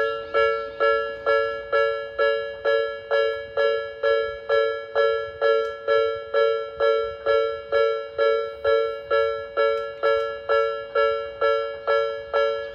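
Old Japanese railway level-crossing alarm bell ringing steadily, about two strikes a second, each strike ringing out and fading before the next.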